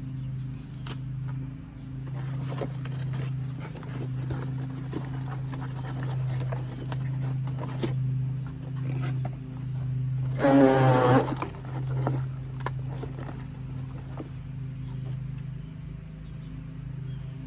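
Tape being pulled off the roll and pressed onto foam board and cardboard: scattered rasps, crinkles and clicks over a steady low hum. About ten seconds in there is a short, loud pitched cry.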